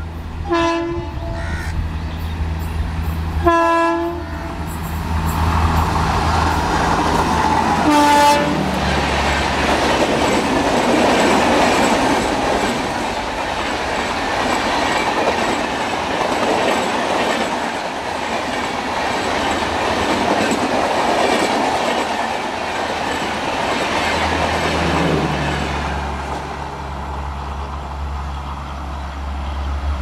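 WAP-4 electric locomotive's horn giving three short, weird-sounding honks as it approaches, the last about eight seconds in. Then the Rajdhani Express's LHB coaches rush past at speed, wheels running over the rails, and the sound fades away near the end.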